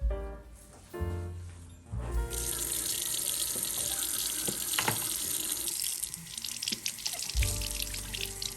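Tap water running steadily into a sink, turned on about two seconds in. Soft background music plays alongside.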